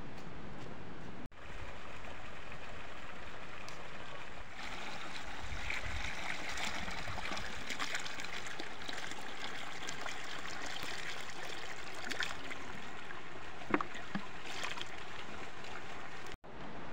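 Water running and trickling steadily, growing louder about four seconds in, as small trout and water are tipped from a plastic bucket into a pond, with light splashes and one sharp tap near the end.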